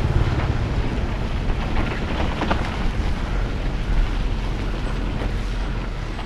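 Wind buffeting the microphone, a steady low rumble over a noisy hiss.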